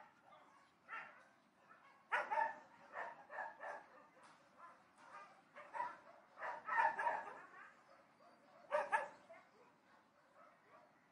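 Dogs barking at a distance: short, irregular barks, some in quick runs of two or three, stopping about nine seconds in.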